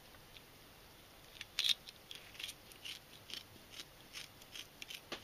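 Kitchen shears snipping through a mackerel's belly: a series of short, crisp cuts at about two a second, starting about a second and a half in.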